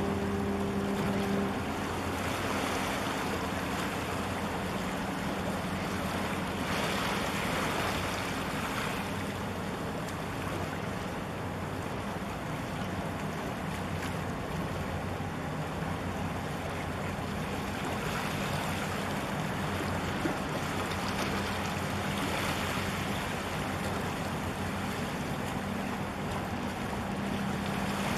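Container ship passing close by: a steady low hum from the vessel's machinery, louder near the end as the bridge and funnel come abreast, over a constant wash of water and wind.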